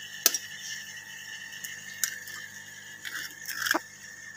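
Eggs being cracked over a glass bowl: a sharp tap of eggshell on the bowl's edge about a quarter second in, another click about two seconds in, then a short run of crackling shell near the end as the next egg is broken open.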